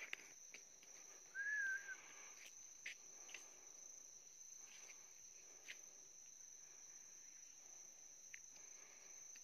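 Faint, steady high-pitched insect drone in the forest, with one short whistled note about a second and a half in and a few faint ticks.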